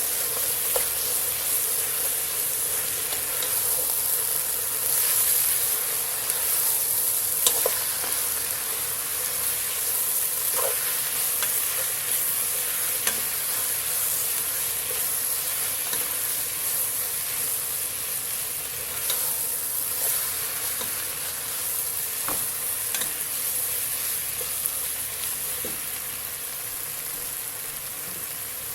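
Chicken and shimeji mushrooms sizzling in a hot pan while being stirred, a steady frying hiss with scattered sharp clicks of the utensil against the pan.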